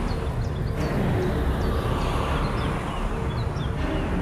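Outdoor ambience of a steady low rumble of road traffic, with small birds chirping in short, high notes.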